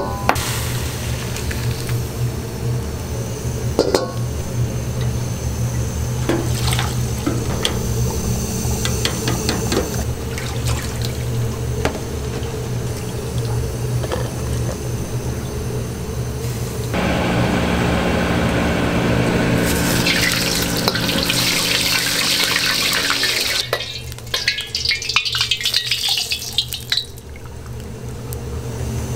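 Commercial kitchen sounds over a steady low hum: light clinks of a metal mesh strainer and wok, then a water tap running for several seconds past the middle, turning into a loud hiss near its end. In the last few seconds, oil is poured from a wok into a metal pot with splashing and crackling.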